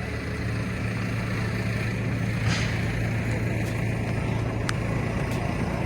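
Tractor engine running at a steady low drone while pulling a hayride wagon, heard from aboard the wagon.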